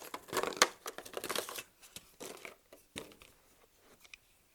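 Handling noise as CZ P10 pistol magazines are taken from their packaging: plastic crinkling and scraping with sharp clicks, busiest in the first second and a half, then a single click about three seconds in and quieter rustling.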